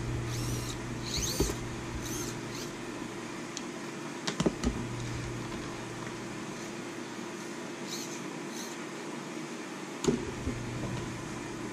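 Hands fitting 3D-printed plastic gimbal parts together: scattered creaks, squeaks and clicks of plastic rubbing and snapping, with a single knock about ten seconds in.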